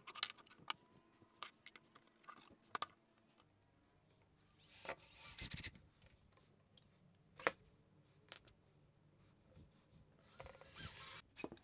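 Pieces of wood knocking and being handled on a plywood bench, then a cordless drill driving screws into the 2x4 wood in two short runs, about five seconds in and near the end.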